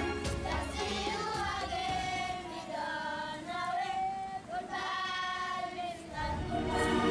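A group of children singing a song together. A music track comes back in near the end.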